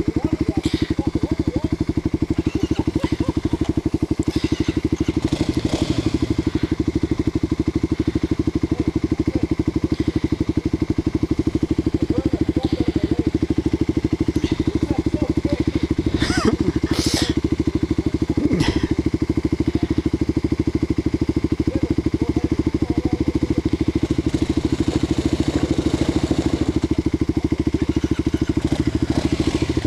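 Single-cylinder dual-sport motorcycle engine idling steadily with an even pulse. A few brief, sharp knocking noises sound just past halfway.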